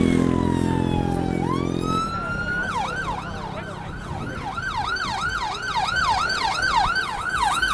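Emergency vehicle siren: a slow wail falling in pitch, then switching about two and a half seconds in to a fast yelp of two to three rises a second. A low steady drone is heard under it for the first two seconds.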